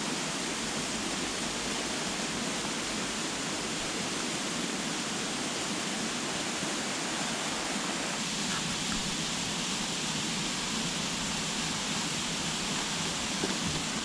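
Steady, even rushing noise with no distinct events, a little brighter from about eight seconds in.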